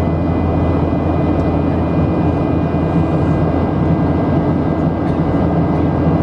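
Steady cabin drone of a Boeing 737's jet engines and rushing air in flight, heard from a window seat over the wing, with a faint steady high whine running through it.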